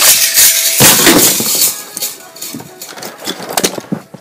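Handling noise: plush toys and hands rubbing against and knocking on the recording device's microphone, a loud rustling rush for the first second or two, then scattered knocks.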